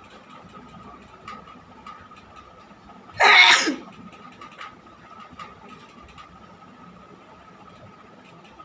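A woman sneezes once, loudly and briefly, about three seconds in.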